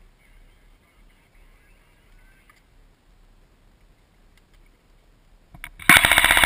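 Airsoft rifle, the gun-camera-mounted PWS Diablo, firing one rapid full-auto burst of about a second near the end, after several seconds of near quiet.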